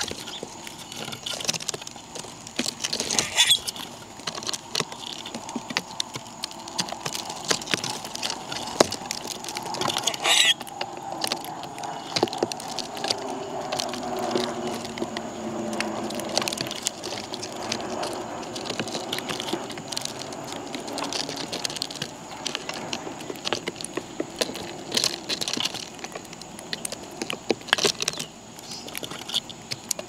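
Birds feeding on scattered seed: a steady patter of small pecks and taps, with a few brief high chirps. A low hum swells and fades midway.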